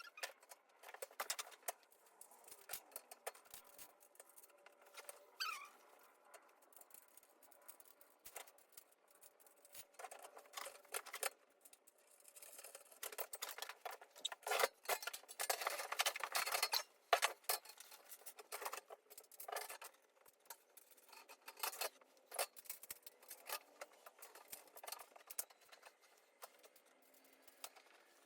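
Scattered light clicks, taps and rustling of parts and packaging being handled, thickest around the middle.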